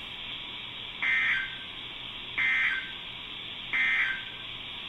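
Emergency Alert System end-of-message data bursts: three short bursts of two-tone digital code about a second apart, the signal that closes the alert.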